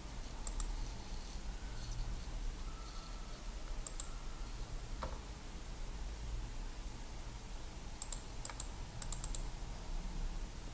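Computer keys being typed: scattered single clicks, then a quick run of four near the end, over a faint low hum.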